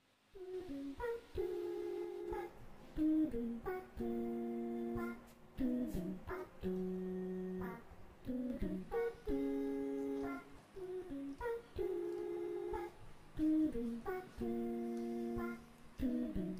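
Instrumental background music: a light melody in short phrases of held notes, each phrase separated by a brief dip.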